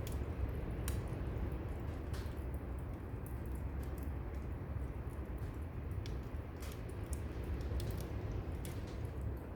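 Firewood burning in a brazier, crackling with irregular sharp pops. Under it runs a steady low rumble of distant ocean surf.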